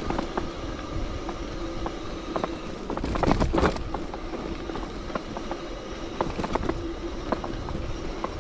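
Bicycle ride noise: wind rumble on the microphone and tyre noise, with many small clicks and rattles from the bike, swelling into a louder rush about three seconds in.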